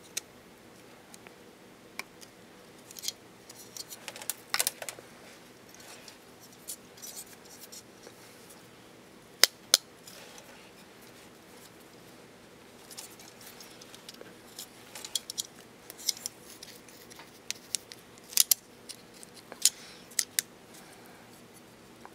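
Metal and carbon-fibre brushless gimbal plates and motor being handled and fitted together by hand: scattered light clicks and taps, with two sharp clicks close together about nine and a half seconds in.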